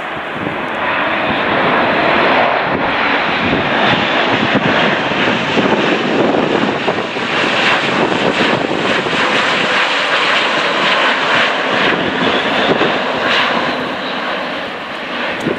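Airbus A400M's four Europrop TP400 turboprop engines and propellers running loud as the aircraft flies a low pass overhead. The roar builds over the first second or two, holds strong through the middle and eases slightly near the end as the aircraft moves away.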